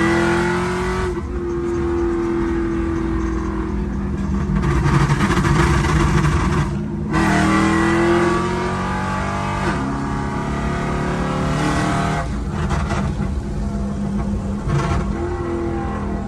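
Car engine under hard acceleration, revving up in pitch and then dropping back, several times as it works through the gears.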